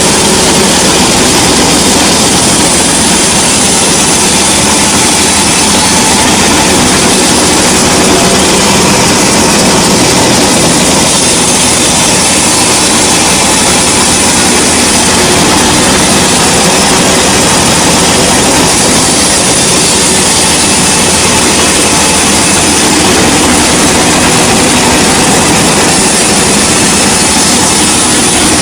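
Sawmill machinery running steadily and loudly, an engine-like drone under a dense, even hiss, with no break or change.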